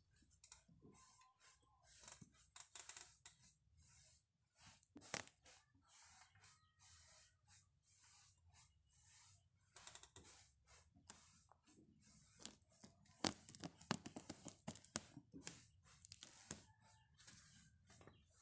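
Plastic wrapping on a cardboard parcel crinkling and tearing in short irregular bursts as it is handled and opened, with a few sharp clicks, one about five seconds in and a busier run of them near the two-thirds mark.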